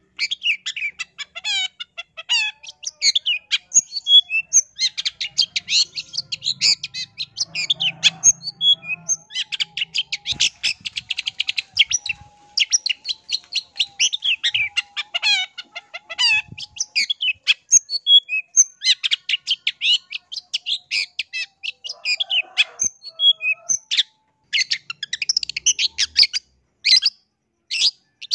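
Long-tailed shrike in full song: long runs of rapid, sweeping, high chattering notes tumbling over one another, breaking off briefly twice in the second half.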